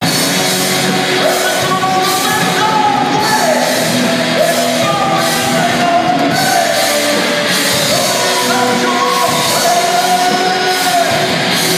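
Heavy metal band playing live: distorted electric guitars, bass, drums and keyboards, with a voice singing a melody over them.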